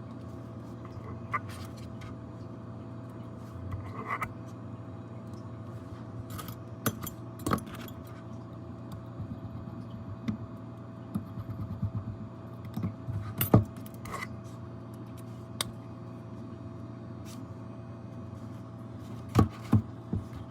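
Scattered light clicks, taps and scrapes of small tools and parts being handled on a repair bench, over a steady electrical hum. The sharpest click comes a little past the middle, and two more come close together near the end.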